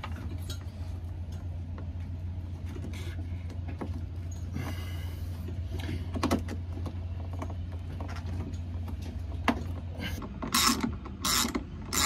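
Socket ratchet wrench clicking through strokes on a bolt of an outboard motor, starting about ten seconds in at a bit over one stroke a second. Before that, scattered clicks and rattles of cables and parts being handled over a steady low hum.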